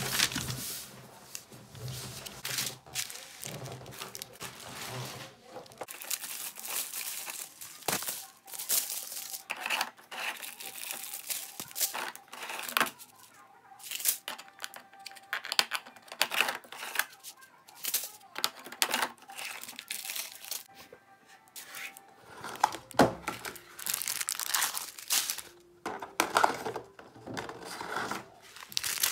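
Paper and small plastic bags of diamond-painting drills being handled, giving a run of irregular crinkling and rustling with sharp crackles.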